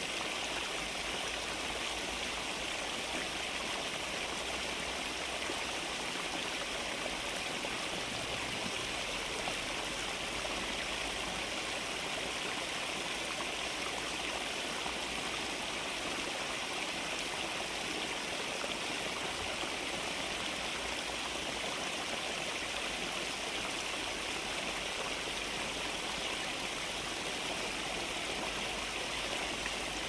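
Small cascade of water pouring in a thin sheet over a mossy stone ledge and splashing onto a stone slab below: a steady, unbroken rush of falling water.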